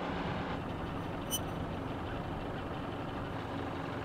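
A sailboat's inboard diesel engine running steadily as the boat motors along, a low even hum. A single light click sounds about a second in.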